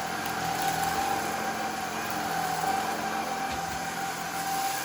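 Shark IZ320UK cordless stick vacuum running steadily, its motor giving an even, unchanging whine over the rush of air.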